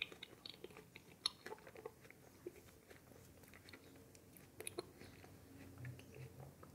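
A person chewing a bite of homemade ice cream topped with grated chocolate: faint, irregular wet clicks and small mouth sounds.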